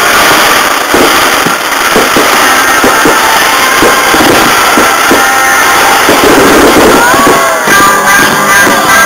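A barrage of fireworks shells bursting in quick succession, very loud, with music playing underneath. The music's held notes come through more plainly near the end.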